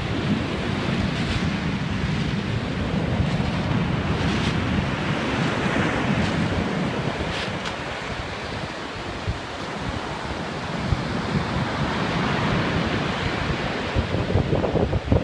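Sea waves washing in a continuous rush of surf, with sharper hissing surges about every three seconds in the first half, and wind buffeting the microphone with a low rumble.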